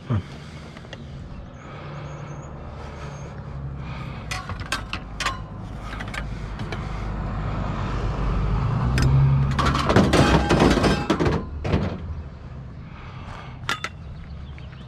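Pickup truck engine running and growing louder toward the middle, with a thunk at the start and scattered knocks and rattles. A loud clatter comes about ten seconds in.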